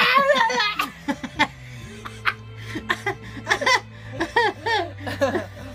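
A young woman laughing hard. A loud, wavering burst trails off just after the start, followed by short, separate, high-pitched yelps of laughter, with a steady low drone underneath.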